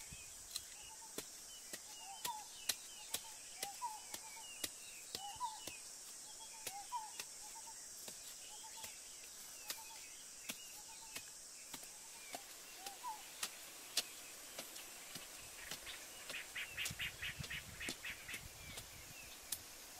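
A bamboo pole jabbed again and again into dry earth, giving sharp irregular thuds, with a quicker run of scraping strokes near the end. Birds chirp with short rising calls, and insects buzz steadily in the background.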